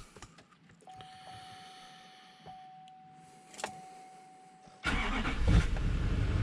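A steady electronic chime tone from the cab, with a few clicks. About five seconds in, the GMC Sierra's Duramax V8 turbo-diesel cranks and catches at once, then runs at a steady idle on its freshly replaced batteries.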